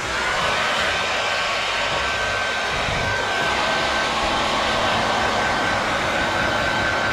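Hair dryer blowing air over a freshly painted motorcycle fairing to dry the paint: a steady rush of air with a steady high whine. It comes on at the start.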